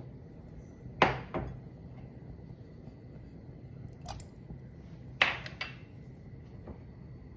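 Two sharp clunks of kitchen items against a stainless steel saucepan, about a second in and again about four seconds later, each followed by a smaller knock, over a low steady hum.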